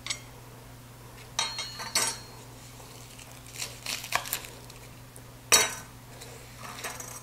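Kitchen knife cutting through whole garlic bulbs and knocking on a wooden cutting board, with the crackle of dry papery garlic skin: a handful of short, sharp knocks and crackles, the loudest about five and a half seconds in.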